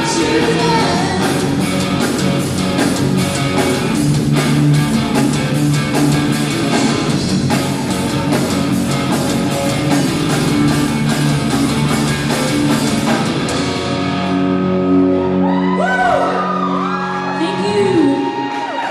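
Live rock band playing, with a drum kit and electric guitar under a woman's singing voice. About fourteen seconds in, the drums and cymbals stop and the voice holds long notes that bend in pitch over the sustained chords.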